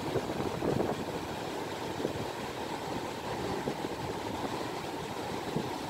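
Strong wind buffeting the microphone in a steady rushing noise, mixed with the continuous sound of big waves breaking on the beach.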